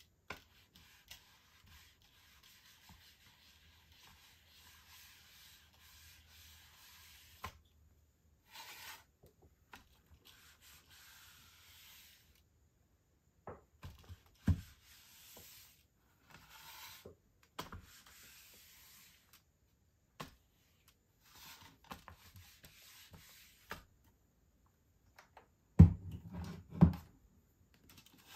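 Steam iron soleplate sliding over a panel of perler beads as they are fused, a steady rubbing hiss in stretches broken by short pauses. A knock about halfway through and a few hard knocks near the end.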